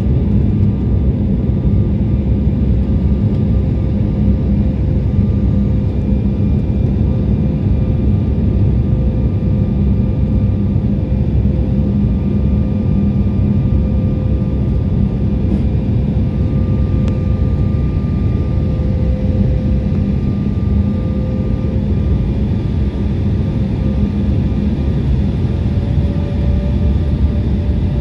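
Cabin noise of an Embraer E175 descending on approach: a steady low drone of its wing-mounted GE CF34 turbofan engines and rushing air. A steady engine tone runs through it, and its pitch sags slightly and then rises again near the end.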